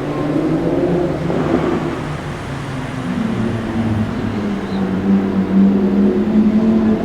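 Audi R8 V10 Plus's V10 engine through a Capristo exhaust, running at low revs with a deep, steady note that drifts a little in pitch.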